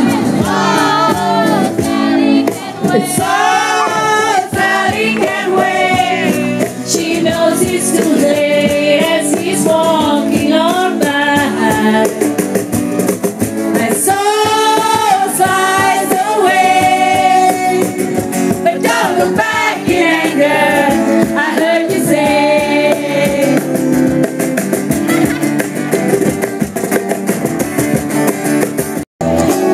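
A female voice singing a slow, melodic song with wavering, held notes over instrumental backing. The music cuts out for an instant near the end.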